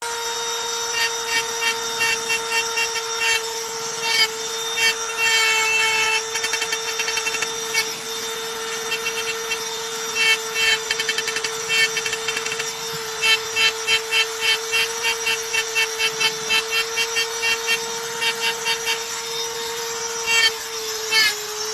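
Hand-held electric rotary engraving tool running with a steady high whine as its bit cuts lines into a stone slab. The cutting comes as rapid grinding bursts, a few a second, in short runs.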